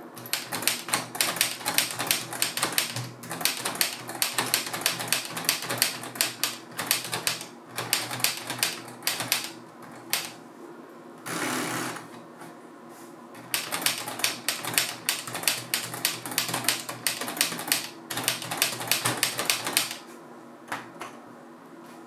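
Keys of a LEGO Ideas 21327 Typewriter, a brick-built plastic model, pressed in quick runs of clacking clicks, several a second. Two long runs of rapid clicking are split by a second-long rasping sound midway, and a few scattered presses come near the end.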